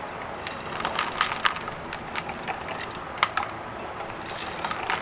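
Scattered clicks, knocks and rattles as the Mighty Mill crusher is handled and its crushed RJ45 connector fragments of rubber, plastic and pins are disturbed, with the grinder stopped.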